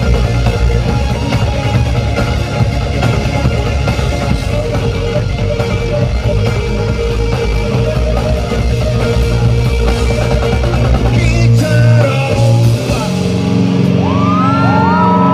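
Live rock band playing loudly, with distorted electric guitar. About twelve seconds in the drums and bass drop out, leaving held notes that slide in pitch as the song winds down.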